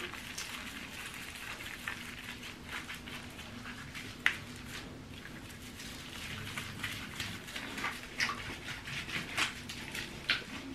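Water pattering and splashing in a bathtub as a wet small dog is bathed, in many small irregular splashes, with one sharper tap about four seconds in.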